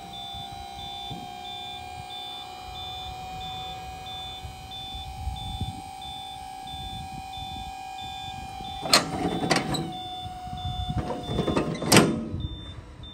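The folding side wing of a Kobashi TX320 Cyber Harrow being lowered hydraulically. A steady hydraulic-unit hum runs under a high electronic beep that pulses evenly. Toward the end come several loud metal clanks as the wing comes down, and the hum stops shortly before the last clanks.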